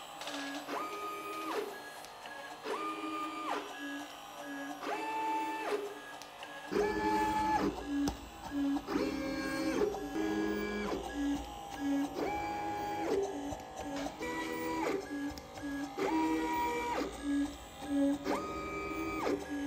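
Lightplacer desktop pick-and-place machine at work: its stepper motors whine in short tones, about one per second, each rising to a held pitch and falling away as the head moves between the component tape feeders and the circuit board.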